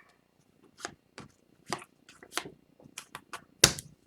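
Trading cards being handled: a string of short, sharp flicks and snaps as the cards are slid and thumbed through by hand, with one louder snap near the end.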